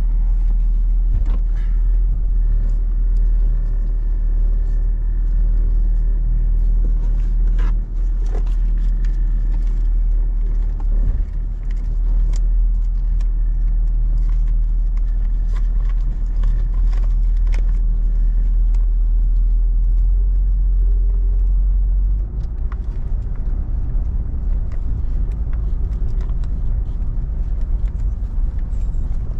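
Inside a moving car: a steady low engine and road rumble, with scattered light clicks and rattles. About three-quarters of the way through, the rumble turns rougher and choppier.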